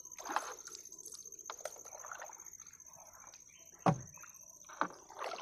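Water dripping and splashing as a wet gill net is hauled hand over hand over the side of a small wooden boat. There are scattered small splashes and one sharp knock on the boat about four seconds in.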